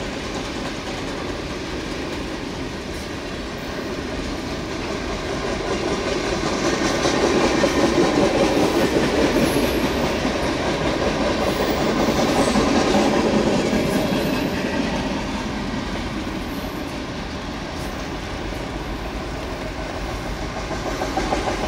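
Norfolk Southern freight train's cars rolling slowly past, a steady rumble and rattle of wheels on rail that grows louder about six seconds in and eases off again after about fourteen seconds.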